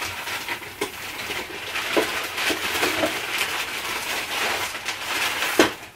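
Someone rummaging through things on a low kitchen shelf: steady rustling with scattered knocks and clatters, the loudest knock near the end.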